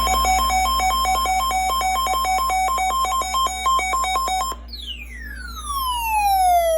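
Electronic synthesized beeps alternating rapidly between two pitches, about seven a second, then, about four and a half seconds in, a single long falling pitch slide that cuts off abruptly near the end. A steady low electrical hum lies underneath.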